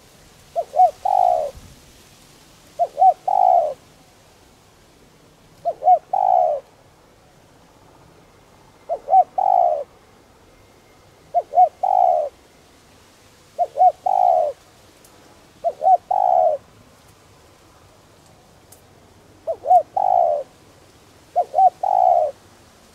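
Spotted dove cooing: nine repeated phrases, each two short coos followed by a longer, fuller coo, coming every two and a half to three seconds.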